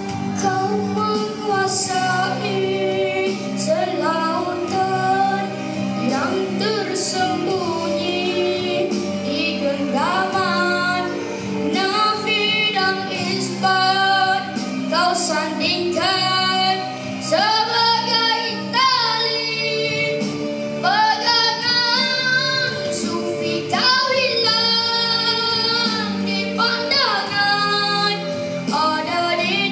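A young boy with an unbroken voice singing a Malay rock song solo into a microphone, over instrumental accompaniment. He holds long notes with vibrato, often sliding up into them.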